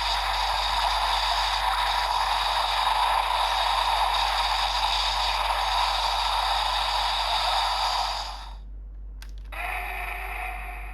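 Electronic sound effect from the speaker of a DX GUTS Sparklence transformation toy: a steady, shimmering hiss threaded with held tones that cuts off suddenly about eight seconds in. About a second later a quieter pitched tone sounds for about two seconds.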